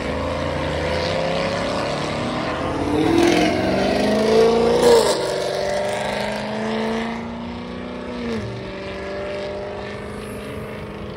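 Modified car engine at hard acceleration, its pitch climbing to a peak about five seconds in and dropping at an upshift. It then holds steady and drops again at another shift near eight seconds as the car pulls away.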